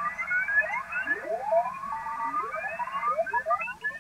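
Many Morse code (CW) signals on a crowded 20-metre contest band, heard through an Icom IC-705 transceiver's speaker in USB mode. Each signal sweeps upward in pitch as the dial is tuned down across it, over a steady receiver hiss.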